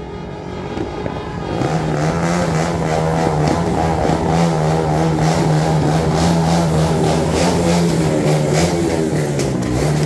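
A vehicle engine revved up about two seconds in and held at a high, steady pitch, with sharp crackling pops over it.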